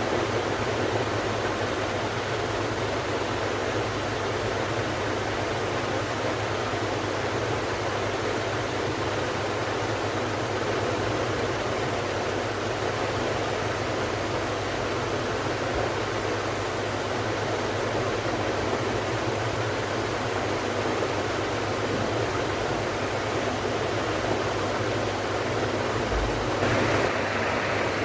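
48-inch ABC ceiling fan running: a steady whoosh of air from its blades over a low, steady hum. Near the end the whoosh turns brighter.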